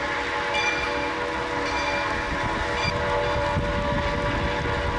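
Steam locomotive No. 1003's whistle blowing one long, steady chord of several tones, with a bell striking about once a second over the first few seconds and a low rumble from the approaching engine.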